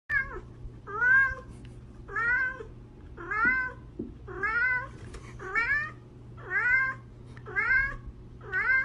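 Tabby cat meowing over and over, about one call a second, each call bending up in pitch.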